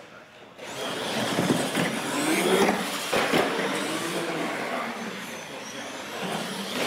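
Radio-controlled monster trucks racing on a concrete floor: the motors whine up and down in pitch over the rush of the tyres, with a few knocks, starting about half a second in.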